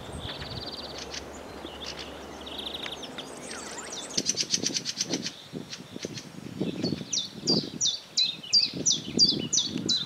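Several songbirds singing in spring: short trills, then a run of quick, repeated descending notes, about three a second, in the second half. Under them, the rustle and soft thuds of footsteps through dry grass from about four seconds in.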